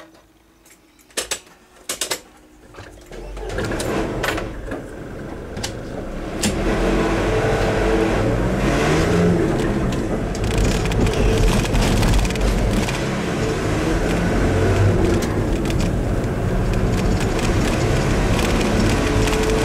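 Heard from inside a car: two sharp clicks about one and two seconds in, then engine and tyre noise build as the car pulls away, settling into a steady drive.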